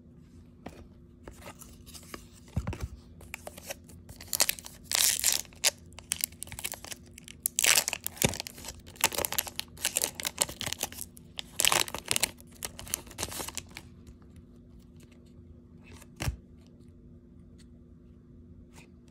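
Foil wrapper of a trading-card pack torn open and crinkled by hand, in a run of irregular crackling tearing bursts over about a dozen seconds. A couple of soft knocks, one early and one near the end.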